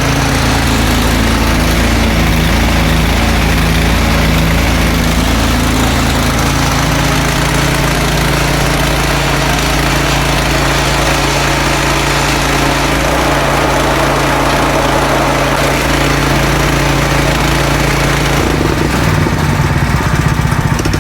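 Craftsman 30-inch snowblower's gas engine running steadily and loudly just after a cold pull start, its first start after sitting all summer.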